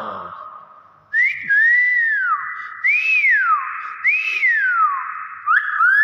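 Hill myna whistling: a run of about five clear whistled notes, each rising and then sliding down, roughly one a second, starting about a second in.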